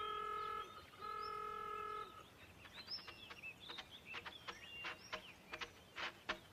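An old truck's horn honking twice in long, steady blasts, then birds chirping, with a few sharp clicks near the end.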